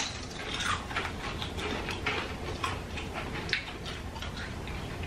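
Two people biting into and chewing paper-thin potato chips made from dried mashed potato: a run of crisp, irregular crunches, a few a second.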